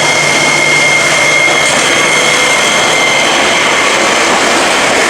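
Enoden level crossing's electric bell ringing continuously together with the crossing's electronic warning tone, a steady high ringing tone, while a train runs past over the crossing.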